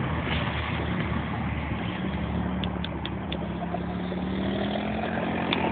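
Quad bike engine running steadily, its pitch creeping up over the last couple of seconds as it speeds up.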